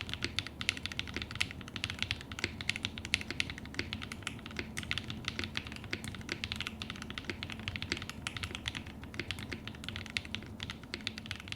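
Fast, continuous typing on a custom QK80 mechanical keyboard with KTT Kang White linear switches, a POM plate and GMK Hanami Dango keycaps: a dense stream of crisp key clacks.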